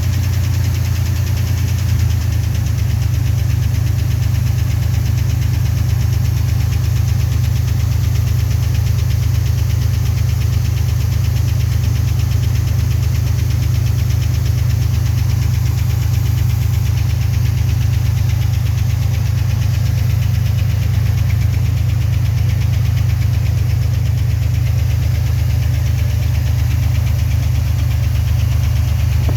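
1990 Chevrolet Cheyenne's 4.3-litre V6 engine running steadily, probably at idle, with a knocking noise.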